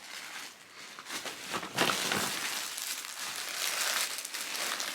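Plastic packaging crinkling and rustling as clothing is handled, faint at first, then steady and louder from about two seconds in.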